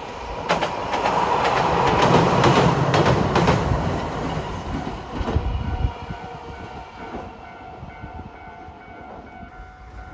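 Hiroshima Electric Railway tram passing, its wheels clacking over rail joints in a quick run of knocks over a rumble that swells and fades out by about six seconds in. Steady ringing tones follow, from a level-crossing bell.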